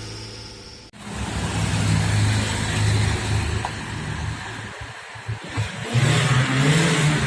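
Heavy vehicle's diesel engine pulling on an uphill climb, cutting in suddenly about a second in and growing louder, with a rising hiss near the end.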